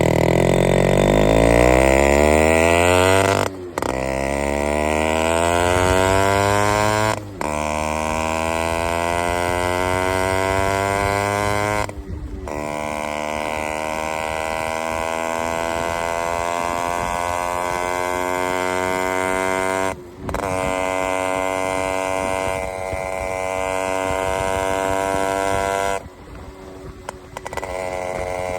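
Yamaha RX135 two-stroke single-cylinder motorcycle engine accelerating through the gears. The pitch climbs in each gear, with a brief drop at each shift about 4, 7, 12 and 20 seconds in. Near the end the throttle eases off for a moment before it pulls again.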